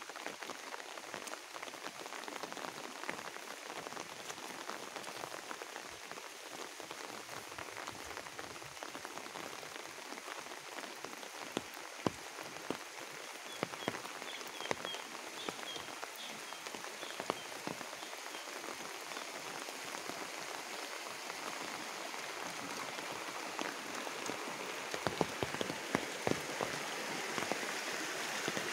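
Steady rain falling on the rice fields and surrounding plants, with scattered louder drops ticking close by. A short run of faint high chirps comes about halfway through, and the rush of a muddy stream grows louder near the end.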